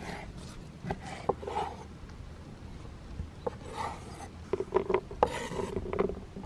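Kitchen knife cutting dried apricots on a wooden cutting board: the blade knocks on the board at irregular intervals, with short scrapes of the blade across the wood as the slices are gathered up.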